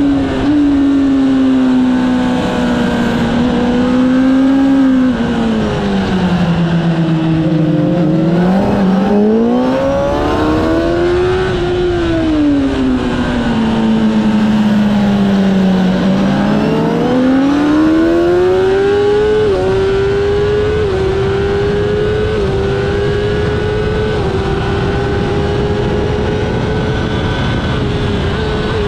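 A racing motorcycle's engine at speed on track, with wind rush. The engine note drops twice as it is braked into corners and climbs again on the exits, then holds high with a run of small steps in pitch as it changes gear along a straight.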